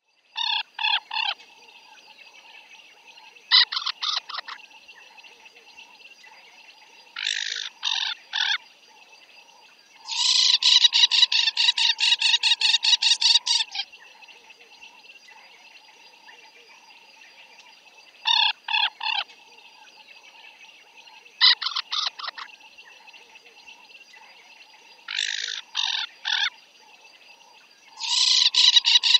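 African jacana calling: short groups of three or four notes, repeated every few seconds, and twice a long fast run of many notes lasting about three and a half seconds, the second starting near the end. A faint steady background drone lies under the calls.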